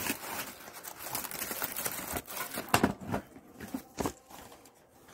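Cardboard shipping box and product cartons handled by hand: irregular rustling and scraping, with a few sharp knocks as the flaps are moved and a box is lifted out.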